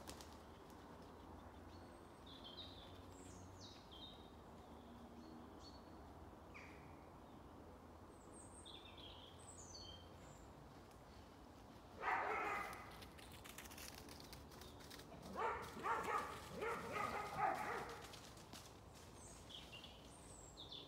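Small birds give short, high chirps. A little past halfway a dog barks once, then a few seconds later it barks loudly several times in quick succession.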